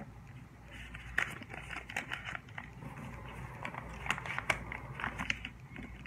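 Origami paper crinkling and rustling as it is folded and creased flat by hand, with irregular crisp ticks.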